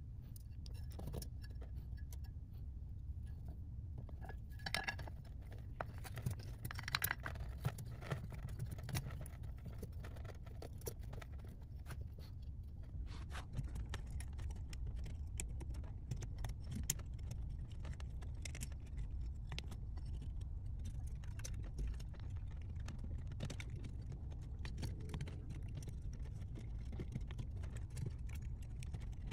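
Small metal clicks and clinks, scattered and irregular, as a golf cart motor's brush holder, with its carbon brushes, coil springs and brass terminals, is handled and fitted into the motor's end housing. A low steady background hum lies under them.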